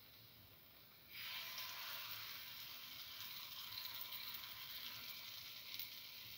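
Chickpea-flour pancake batter sizzling in a hot oiled pan cavity. The sizzle starts suddenly about a second in as the batter goes in, then holds as a steady hiss.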